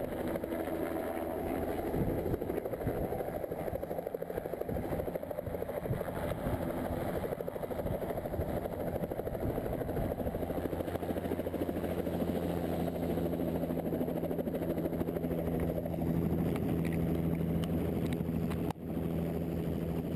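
Bell 206 JetRanger-type helicopter running, its two-bladed main rotor beating rapidly over the turbine. From about halfway a steady low hum comes to the fore, and there is a brief dropout near the end.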